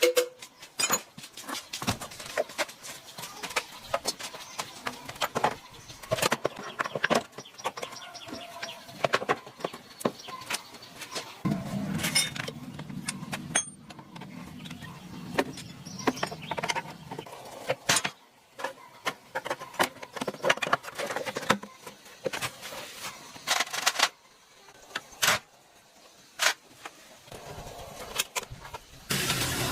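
Irregular metallic clinks and knocks of hand work on a motorcycle, with a low hum partway through.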